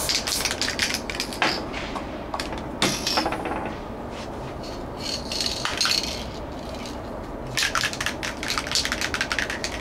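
Aerosol spray cans in use: short hisses of spray adhesive, then a quick run of rattling clicks in the last two seconds as a can is shaken and its mixing ball knocks inside.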